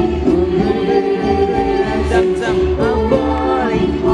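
Dance music with singing voices over a steady bass beat, played as the accompaniment for a children's dance routine.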